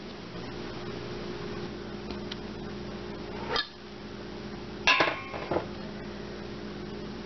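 Stainless steel saucepan clanking on an electric stovetop: a quick cluster of three or four metallic knocks about five seconds in, over a steady low hum.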